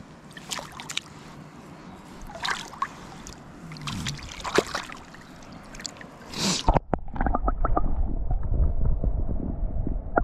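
Small splashes and trickles of river water as a trout is handled in a landing net and lowered back into the river. About seven seconds in, the microphone goes underwater and the sound turns to a muffled low rumble with a few knocks.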